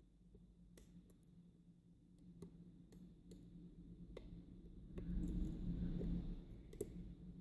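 Faint scattered clicks of a lock pick working the pins of a 5-pin rim cylinder, with a gust of gale-force wind outside rumbling up about four seconds in, loudest around five to six seconds, then easing.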